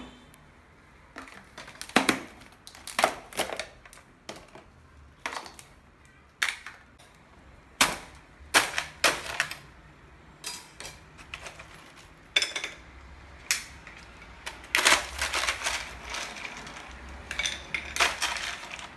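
Ice cubes being scooped and dropped into a container: irregular sharp clinks and knocks about once a second, turning into a denser rattle in the last few seconds.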